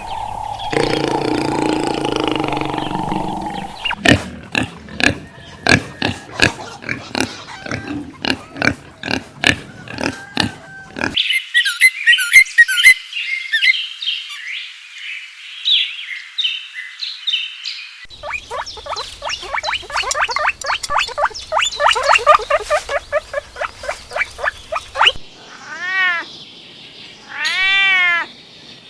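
A run of different animal calls spliced one after another: a low growl, then rapid clicking calls, then high chirping, then rapid calls again, and near the end a few drawn-out cat meows.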